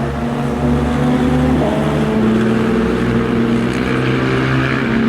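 An engine running steadily and close by, with a low hum whose pitch shifts slightly about one and a half seconds in.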